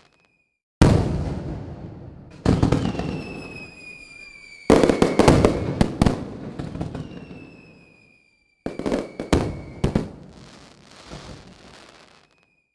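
Fireworks going off: a series of loud bangs, each crackling away over a second or two. Between the bangs come two whistling rockets, each a whistle that falls slightly in pitch.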